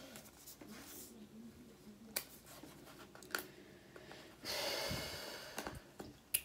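Quiet handling of a phone screen protector kit's packaging, with a couple of small sharp clicks, then a louder breathy rush of noise lasting about a second and a half.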